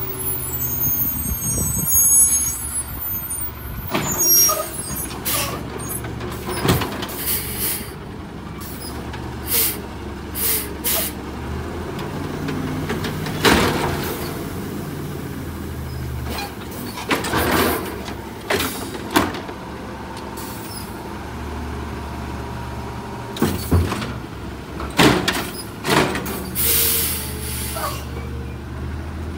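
Automated side-loader arm on a refurbished 2009 Autocar dual-axle garbage truck picking up and dumping a trash cart. The engine drone steps up and down in pitch while it drives the arm's hydraulics, and the cart knocks against the hopper many times as it is shaken out and set back. Near the end there is a burst of air-brake hiss as the truck gets ready to pull away.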